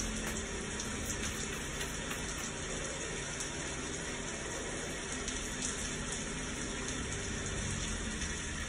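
Recorded rain, a steady even wash of rainfall from a thunderstorm sound track played back in the room.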